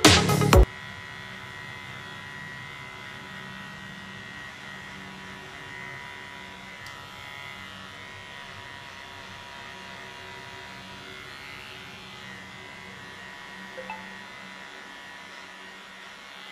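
Loud electronic music cuts off abruptly about half a second in. Then electric hair clippers buzz steadily as they trim the sides of the head for a fade.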